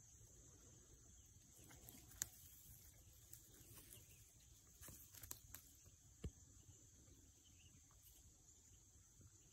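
Near silence: faint rural outdoor ambience with a steady high-pitched insect drone and a couple of faint clicks.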